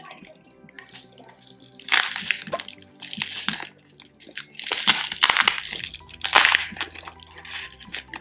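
Plastic packaging crinkling and rustling in a series of loud bursts as a bag is torn open and pulled apart by hand.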